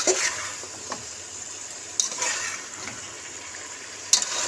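Potato sticks frying in masala in a metal pot, with a steady sizzle. A metal slotted spatula stirs them, scraping and clinking against the pot a handful of times.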